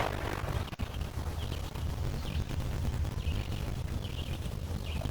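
Small lake waves lapping, under a steady low rumble, with faint short bird chirps about once a second.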